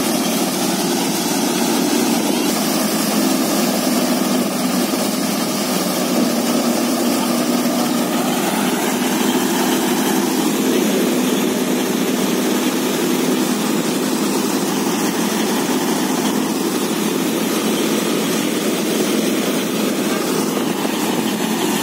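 Tractor-driven Leader wheat thresher running steadily at full speed, its drum threshing wheat bundles and blowing out chaff, over the steady hum of the tractor engine that powers it.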